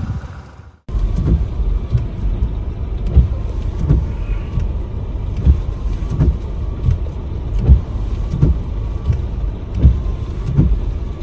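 Low rumble of a motor vehicle, with irregular heavier low thumps, after a short dip about a second in.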